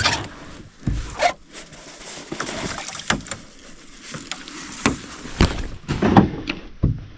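Scattered knocks and bumps on a canoe hull over a steady splashing haze, in a leaking canoe that is taking on water.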